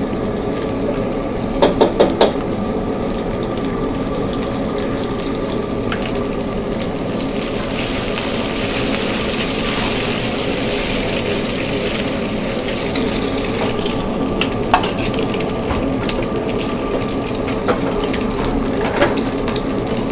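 Egg sizzling in a hot steel wok under a steady background roar, with a steel wok ladle tapping and scraping on the wok: four quick taps about two seconds in and single clacks later. The sizzle grows louder and brighter from about eight seconds in.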